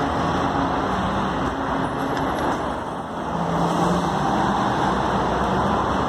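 Steady road traffic noise from cars passing on a multi-lane road, with an engine's low hum growing stronger about four seconds in.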